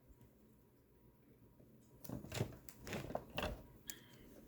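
Faint clicks and light knocks of small tools and parts being handled at a workbench, starting about two seconds in after near silence.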